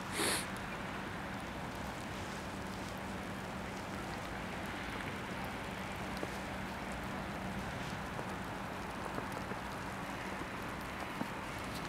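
Steady hiss of distant town traffic with a faint low hum, and one brief high squeak just after the start.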